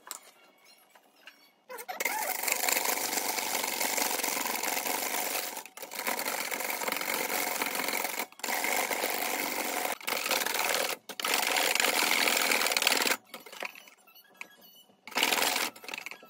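Wire balloon whisk beating egg whites in a stainless steel bowl: steady, dense beating of wire against the metal from about two seconds in, with a few short breaks, stopping about two-thirds through, then one brief burst near the end. The whites are being whipped to stiff peaks.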